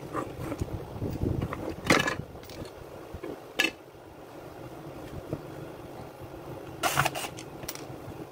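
Plastic housing and parts of a Makita UC4551A electric chain saw being handled and set down on a hard floor during disassembly: scattered knocks, clicks and light scrapes. The loudest knock comes about two seconds in, and a quick cluster comes near the end, over a steady low background hum.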